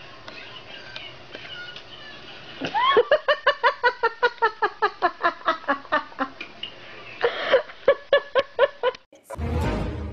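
Two rapid runs of short, high-pitched voiced calls, about five a second, each call bending in pitch.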